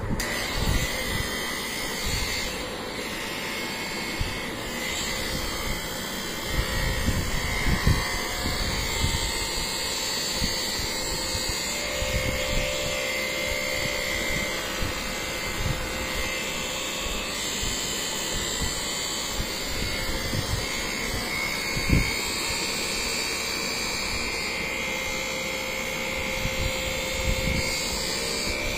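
Handheld electric massager running against a patient's back for chest physiotherapy: a steady motor whir with a faint wavering whine and irregular low thumps, and one sharp knock about 22 seconds in.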